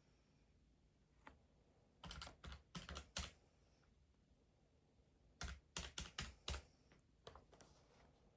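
Faint key taps in two quick runs of about six presses each, a few seconds apart, with a few softer taps near the end: keys being pressed while working.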